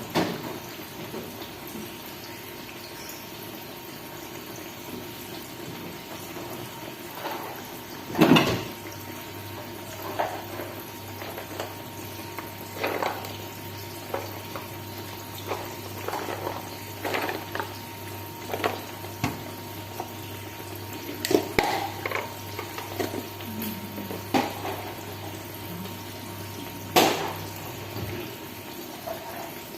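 Home kitchen cooking sounds: a steady hiss under scattered knocks and clatters of pots and utensils, the loudest about eight seconds in and again near the end. A low hum comes in just after the first loud clatter and stops shortly before the second.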